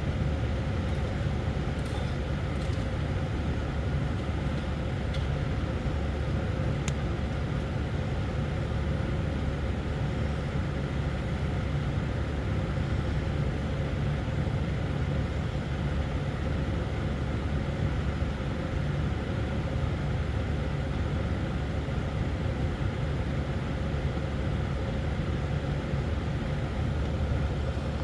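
A vehicle engine running steadily with a low, even rumble.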